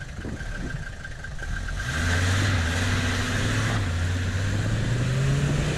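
Puch G-wagon's engine under load as the truck climbs a steep muddy bank. It is quieter for the first two seconds, then comes on strongly, and the revs rise slowly toward the end.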